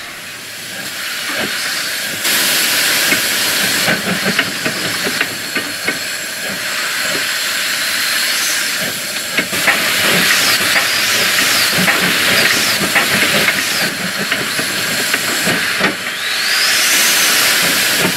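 W-class 4-8-2 steam locomotive working slowly uphill with a train, steam hissing loudly around it, with scattered knocks and clanks through the hiss. The hiss swells about two seconds in and again later.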